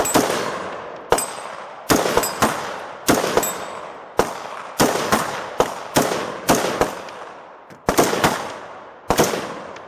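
Semi-automatic gunfire from an AR-15 pistol: about eighteen shots at an irregular pace of roughly two a second, some in quick pairs, each with a long echo fading behind it.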